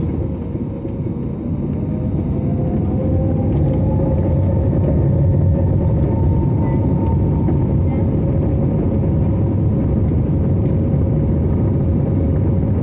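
Airliner jet engines spooling up with a rising whine over the first few seconds, then running steadily under a loud rumble: the start of the takeoff roll.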